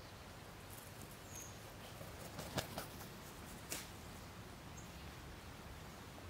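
A crow foraging at food on a log: a few sharp taps and clicks, three of them close together in the middle, with two faint high chirps.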